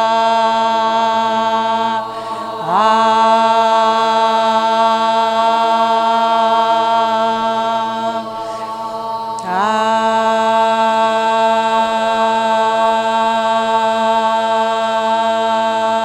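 A woman chanting in a monotone, holding one steady, unchanging note. Twice, about two seconds in and again around nine seconds in, the note breaks off briefly and comes back in with a quick upward slide to the same pitch.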